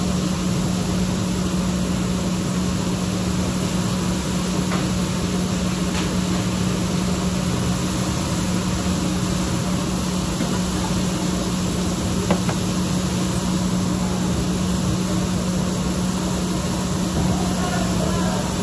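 Steady machine hum with a constant low tone, unbroken throughout, with a couple of faint clicks.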